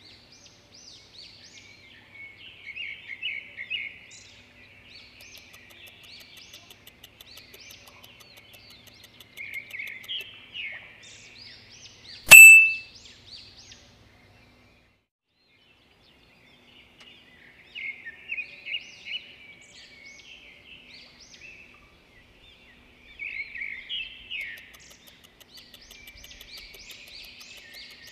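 Songbirds singing in bursts of quick chirps and trills, as a background track. About twelve seconds in comes a single loud ding that fades over about a second, then a couple of seconds of silence before the birdsong starts again.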